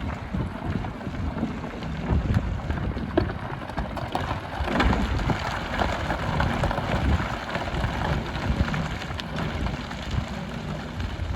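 Hyundai HX300 hydraulic excavator working aggregate: its diesel engine running under load while gravel and stones scrape and rattle against the bucket, the rattling busiest about halfway through.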